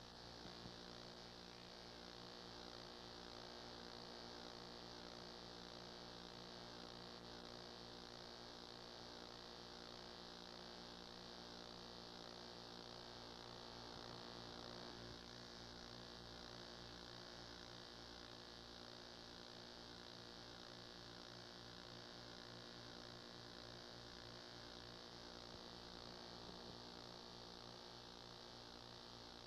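Near silence: a faint, steady electrical hum under a layer of hiss, the noise floor of an old game-film tape transfer that carries no game sound.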